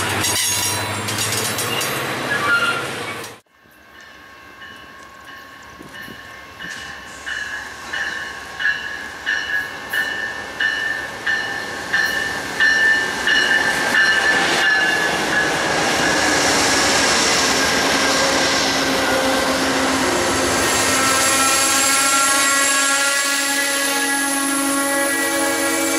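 Freight cars rolling past with clickety-clack on the rail joints, cut off suddenly after about three seconds. Then an Amtrak P42 locomotive's bell rings in steady strokes, louder as it approaches, and the passenger cars roll in with a steady multi-tone squeal over the rumble of wheels.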